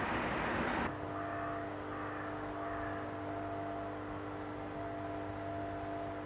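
Class 86 electric locomotive standing with its equipment running: a steady electrical hum with several fixed tones. In the first second, loud train noise from the previous shot cuts off suddenly.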